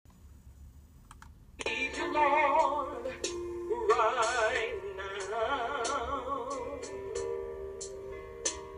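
A woman singing gospel with a wide vibrato, starting about a second and a half in, over sustained electric keyboard chords.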